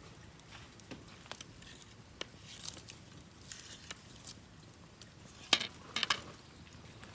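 Wood campfire crackling, with scattered irregular pops and a louder cluster of snaps about five and a half seconds in.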